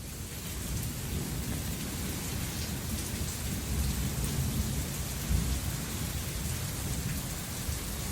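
Heavy monsoon rain pouring down steadily, with a constant low rumble under the hiss of the rain.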